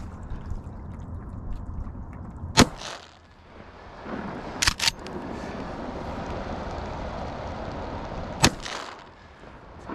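Two shotgun shots about six seconds apart, the first the louder, with a quieter pair of sharp clicks between them.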